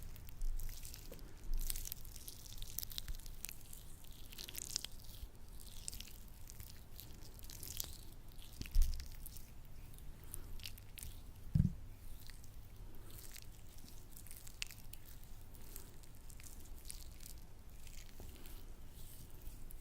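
Latex-gloved hands working sticky lotion close to the microphone: a run of small wet, sticky crackles and squishes, with two brief low thumps about nine and twelve seconds in.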